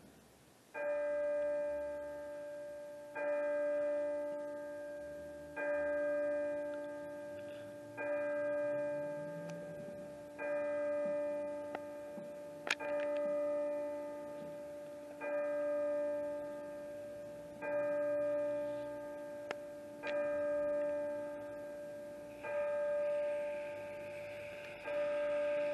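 Digital bell chimes from a clock tower striking the hour of noon: the same single bell tone struck about every two and a half seconds, eleven times, each strike ringing out and fading before the next. The bell is electronic, not a real bell.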